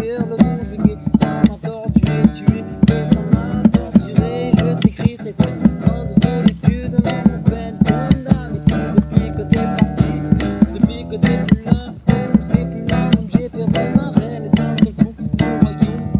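Guitar music with a fast, steady beat of sharp percussive hits.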